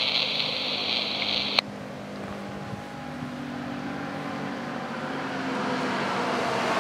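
Scanner radio hissing on an open channel after the dispatcher's call, cut off with a squelch click about a second and a half in. After that comes a low steady background hum that slowly grows louder toward the end.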